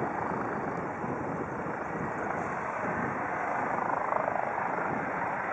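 Distant Eurocopter EC135 twin-turbine rescue helicopter running, a steady rotor and turbine noise that swells slightly about four seconds in.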